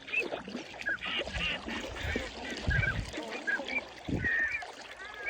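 Waterfowl calling over and over, many short high calls overlapping, with a few low thumps in the middle.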